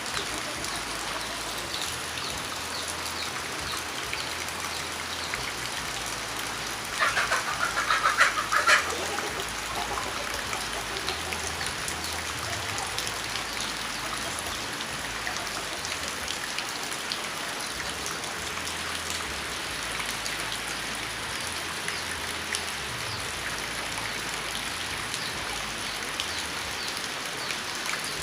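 Steady rain falling on surfaces, with individual drops pattering throughout. About seven seconds in, a louder burst of bird calls lasts about two seconds.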